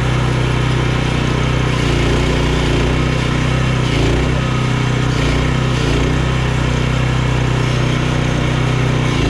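Sawmill's engine running steadily at an even speed.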